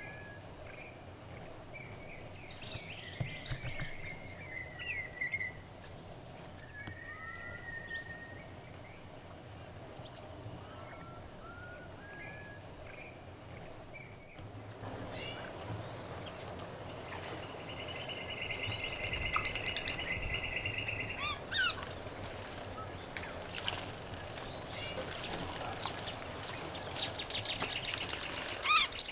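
Several wild birds calling: short whistled notes and chirps, then about halfway a rapid, even trill lasting about three seconds, followed by sharp calls and another fast trill near the end.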